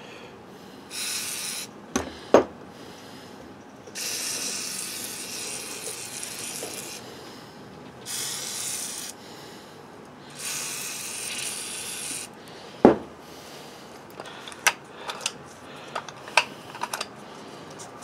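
Aerosol can of silicone lubricant sprayed in four bursts onto an automatic locking hub. Sharp clicks and knocks follow near the end as the hub parts are handled and turned.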